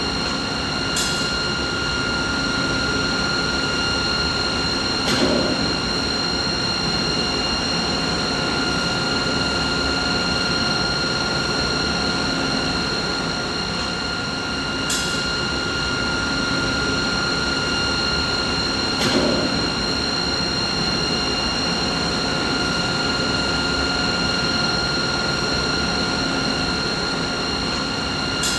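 Steady mid-frequency machine noise: a continuous rushing hum with several high, even whining tones held over it. A few brief clicks break through now and then.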